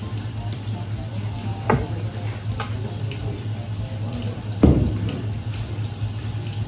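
Tap water running steadily from a hose spray nozzle onto a cutting board, over a low steady hum. There are two knocks from the board, a light one early and a louder one a few seconds later, as a knife works a fish.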